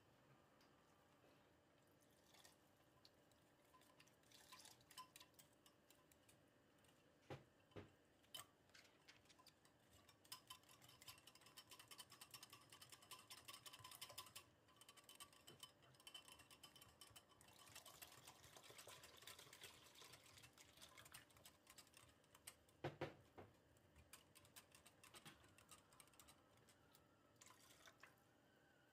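Faint rapid clicking of a wire whisk against a glass bowl, whisking flour into yogurt, with a few louder knocks.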